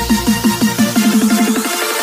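Electronic dance music with quick repeated synth notes over a steady bass; near the end the bass drops out and the notes speed up into a build.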